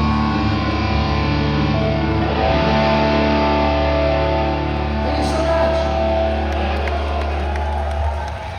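Loud live rock music: electric guitars and bass holding sustained chords that stop shortly before the end.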